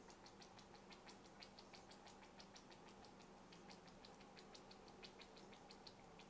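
Oil-medium dispenser bottle dabbing oil onto a paper drawing sheet: faint, quick, irregular ticking taps, several a second, over a low steady hum.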